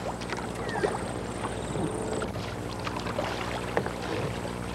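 Canadian canoe being reverse-paddled on flat water: soft paddle strokes and water sounds over a steady low hum.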